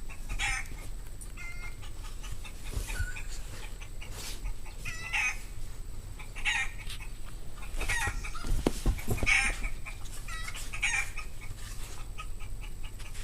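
Recorded chicken sound effect, a hen clucking in repeated short bursts about every second or so, played through MacBook Pro laptop speakers. A few low thuds come about eight to nine seconds in.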